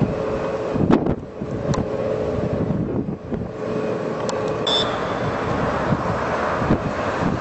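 Urban street traffic with wind on the microphone: a steady engine hum under a continuous traffic rumble. The hum drops out about halfway through, where the background turns to a hissier rush.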